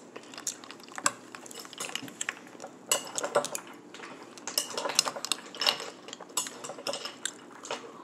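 Metal spoon clinking and scraping against a ceramic bowl and ice cubes as it scoops berries, a run of short, irregular clinks, some with a brief ring.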